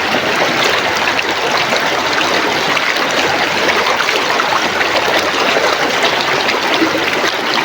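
River water flowing and babbling steadily over rocks, a constant rush dotted with many small splashes and trickles.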